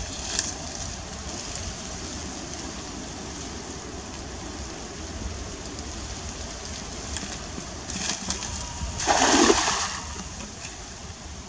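A splash in water about nine seconds in, lasting about a second, over a steady background hiss.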